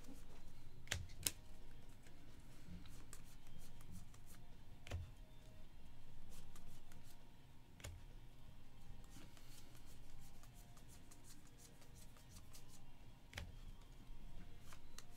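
Trading card packs and cards being handled: quiet rustling with scattered light clicks and a few sharper snaps as cards are flipped through.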